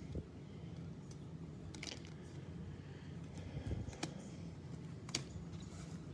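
Rigid plastic card holders clicking and tapping against each other as a stack of cased trading cards is handled and set down. There are a few sharp clicks over a faint low hum.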